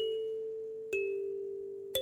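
Kalimba (thumb piano) playing a slow chime tune: three single plucked notes about a second apart, each tine ringing and slowly fading, the third near the end.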